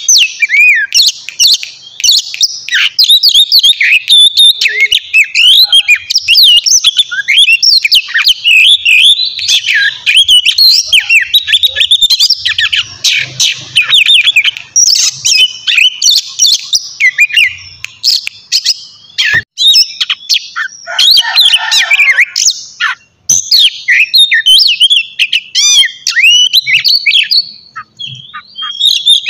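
Oriental magpie-robin (kacer) singing loudly and continuously, a fast, varied run of whistled and chattering phrases with a harsher, rasping stretch about two-thirds of the way through.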